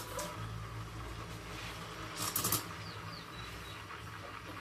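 Gaggia Classic steam wand hissing steadily into a milk pitcher while steaming milk, over a low machine hum, with a few light clicks about two and a half seconds in.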